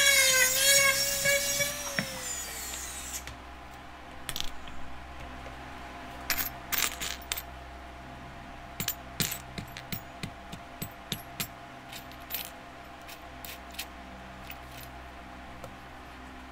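A rotary engraving tool whines at a steady pitch, then spins down with a falling pitch about two to three seconds in. After that come scattered light clicks and clinks of small metal burrs being picked through on a workbench.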